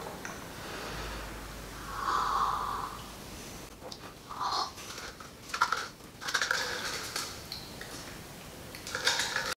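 A man sipping from a small paper cup, with breaths through the nose and mouth and small lip and tongue smacks.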